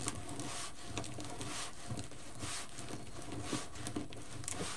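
Deco mesh being gathered and scrunched by hand, rustling and crinkling in a series of short, irregular rustles.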